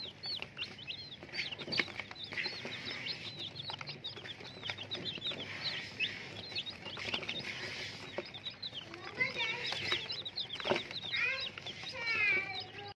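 A flock of young chicks peeping without a break: many short, high, falling chirps overlapping one another.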